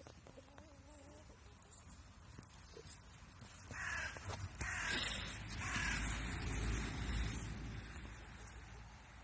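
Harsh, caw-like calls from farmyard animals, loudest through the middle few seconds, with a low rumble beneath them.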